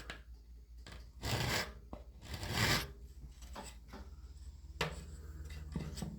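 Two strokes of a hand file across a sawmill band-saw tooth, about a second apart, taking off the burr rolled over the top of the tooth. A few faint ticks follow.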